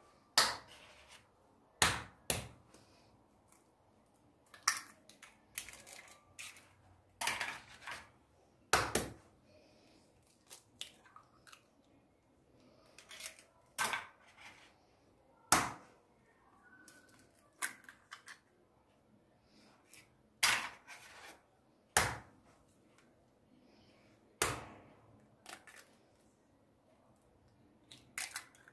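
Irregular sharp knocks and clinks of kitchen dishes and utensils being handled and set down, one every second or two, some with a brief ring.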